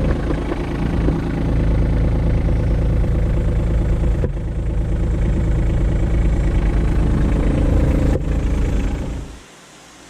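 Kubota LX2610 compact tractor's three-cylinder diesel engine running steadily under way, with a couple of brief knocks; near the end the engine sound drops away suddenly to a quieter steady hiss.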